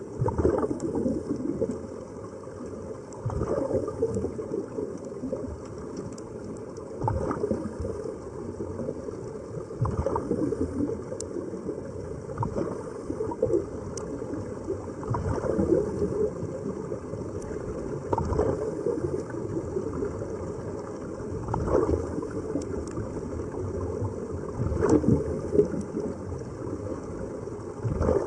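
Air bubbling and gurgling underwater around sea-walker diving helmets fed with surface air, a continuous rush that swells every three seconds or so.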